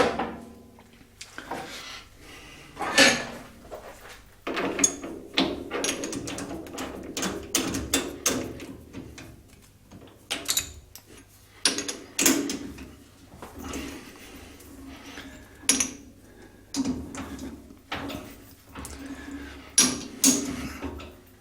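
Irregular metal clunks, clicks and short sliding scrapes of tooling and parts being handled at a small metal lathe during setup, with no steady machine run.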